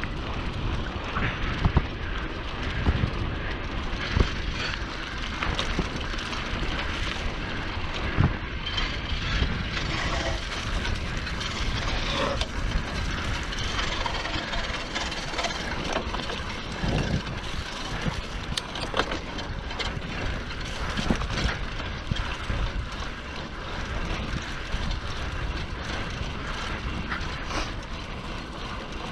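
Mountain bike riding a trail: steady wind rush and tyre rumble, with scattered irregular knocks and rattles from the bike over bumps.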